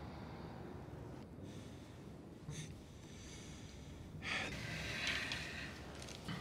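Soft breathing, a few quiet breaths in and out, with a longer, louder breath about four seconds in.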